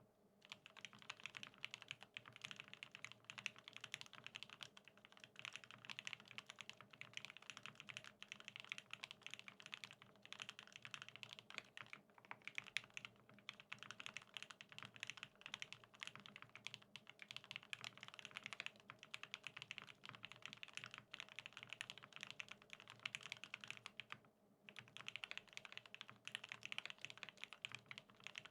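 Continuous typing on a custom BAEBAE TKL mechanical keyboard: OA switches lubed with Krytox 105 in an aluminium plate, with foam dampening and NCR keycaps. Dense keystroke clicks, with one brief pause late on.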